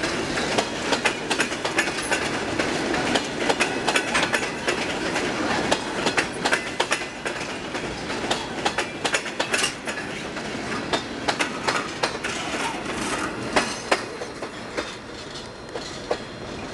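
Freight train hopper cars rolling past at close range: a steady rumble of steel wheels on rail, broken by many sharp clicks and clanks. The sound eases off near the end as the last car goes by.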